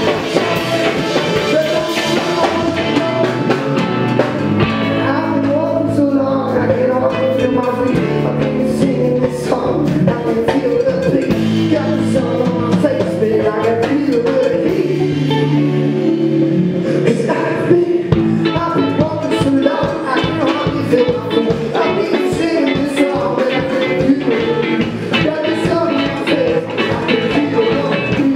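Indie rock band playing live: electric guitars and drums, with a man singing lead into a microphone.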